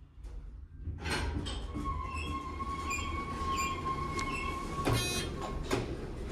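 Subway train noise, a loud rumble with a steady high wheel squeal, comes in suddenly about a second in as the elevator doors slide open. A sharp clank comes near five seconds and another shortly after.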